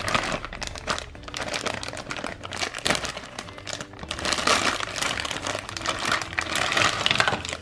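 Thin clear plastic bag crinkling as hands handle it and open it, the crinkling heavier in the second half.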